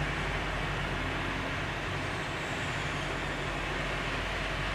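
Steady urban background noise, like distant city traffic: an even hiss with a low hum underneath, no sharp events.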